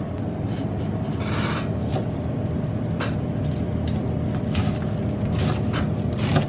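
Chef's knife slicing through a head of green cabbage onto a cutting board, in short irregular cuts about every second, over a steady low hum.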